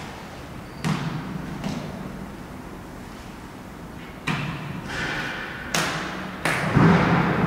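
A hard-shell briefcase knocking and thudding on a concrete floor: a couple of light knocks, then, near the end, several sharper knocks and clicks as it is set down and handled, with a swelling rush of noise building under them.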